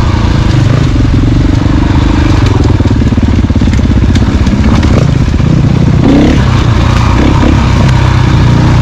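Dual-sport motorcycle engine running steadily, its pitch shifting a little up and down.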